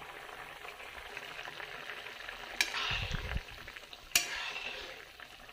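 A thin fish curry bubbling at a boil in a metal pan. A steel ladle stirs it and clinks sharply against the pan twice, about two and a half and four seconds in.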